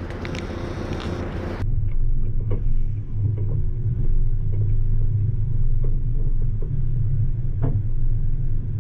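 Off-road truck engine running at low revs, a steady low rumble. Wind noise on the microphone in the first second or two cuts off suddenly, leaving only the engine.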